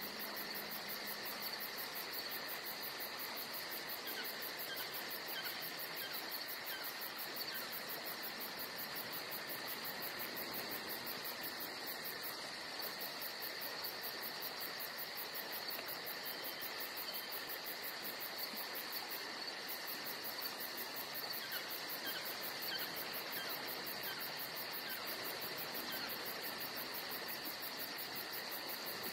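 Steady insect chorus of crickets trilling without a break, a continuous high, fast-pulsing chirr laid on as a sound effect.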